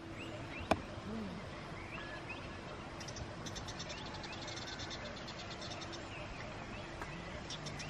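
Outdoor morning ambience: birds chirping over a steady background hiss, with a fast rattling trill from about three seconds in lasting a second and a half. One sharp click comes a little under a second in.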